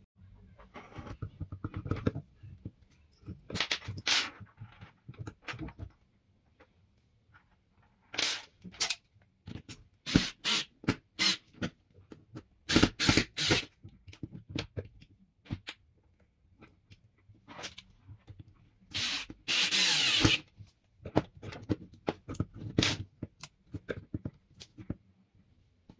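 Workshop handling noises: irregular clicks, knocks and rubbing of small hard parts being handled, with one longer noisy burst of just over a second about two-thirds of the way through.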